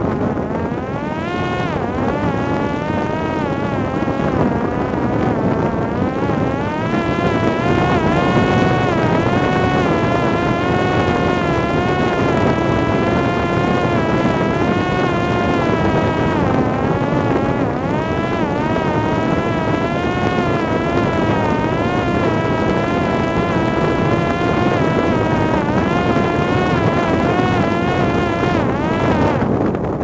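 Parrot Disco fixed-wing drone's electric motor and pusher propeller whining in flight, its pitch wavering up and down as the throttle changes, over wind rushing on the microphone. The whine comes in about a second in and cuts out near the end.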